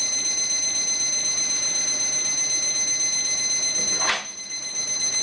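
Electronic alarm ringing: a loud, steady, high-pitched electronic ring going off as a morning wake-up call. A sharp click cuts across it about four seconds in.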